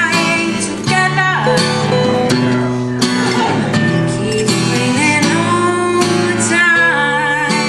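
Live acoustic-band performance of an upbeat country song: strummed acoustic guitar and electric guitar playing together under a sung melody.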